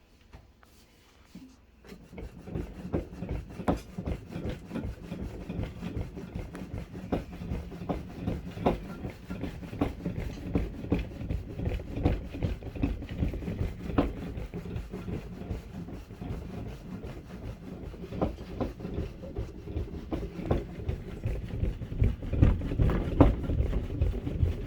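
Simulated earthquake shaking of a K'nex model building: rapid back-and-forth rubbing and scraping with a dense stream of clicks and rattles from the plastic pieces. It starts about two seconds in and is a little louder near the end.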